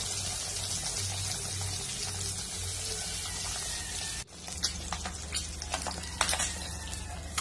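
Boiled eggs frying in hot oil in a wok, a steady sizzle. After a short break about four seconds in, a few light clicks of a spatula against the pan as the eggs are turned.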